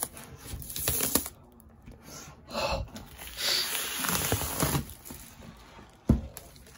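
Clear plastic wrapping crinkling and rustling in several irregular bursts as it is handled and pulled away, with one sharp knock about six seconds in.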